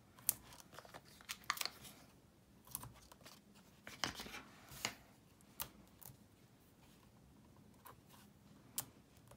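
Light paper rustling and scattered sharp little ticks as die-cut cardstock flowers are handled and foam adhesive dots are peeled from their backing sheet and pressed on. The sounds come in short, separate bits, with a brief busier patch about four seconds in.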